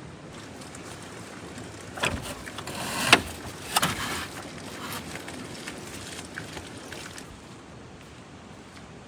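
A few sharp knocks and clatters, as of objects being handled, bunched together about two to four seconds in, the loudest near three seconds, over a steady low hiss.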